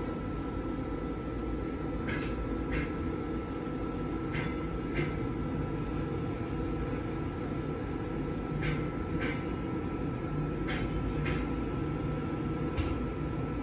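Passenger train's wheels clacking over rail joints as it pulls slowly out, in pairs of clacks about every two seconds over a steady low rumble, heard from inside a carriage through its window.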